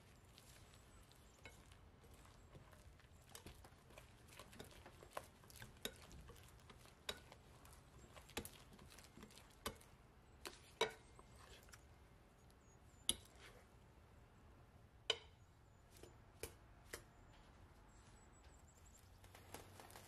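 Quiet, irregular soft taps and sticky slaps from wet yeast dough being mixed and kneaded in a glass bowl, first with a wire whisk and then by hand, about one every second or two over a faint hiss.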